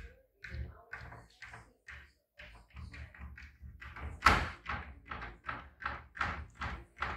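A Ragdoll cat pawing over and over at a handleless kitchen cabinet door, the door tapping and thudding against its frame about two to three times a second, loudest a little past the middle.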